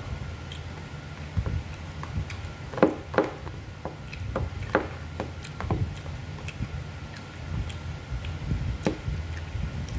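Metal spoon and fork tapping and scraping against a plastic food container as noodles are scooped up: a scatter of sharp clicks, the two loudest about three seconds in, over a low steady hum.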